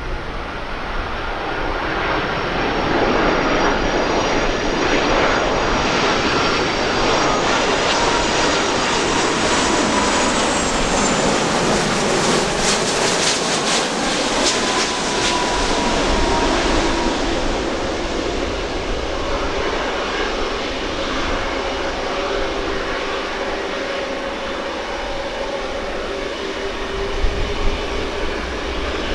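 Airbus A330 twin-engine jet airliner on landing approach passing the listener: a loud jet roar that builds over the first few seconds, peaks about halfway through with a high whine sliding slowly down in pitch, then eases into a lower, steadier roar as it moves away.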